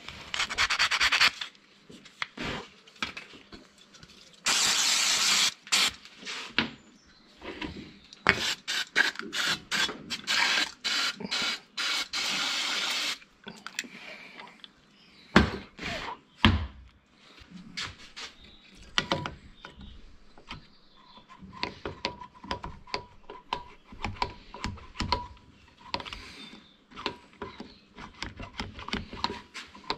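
Bench work on a starter motor's small metal parts: several bursts of rubbing or scraping, each about a second long, in the first half, then scattered clicks and knocks of parts being handled.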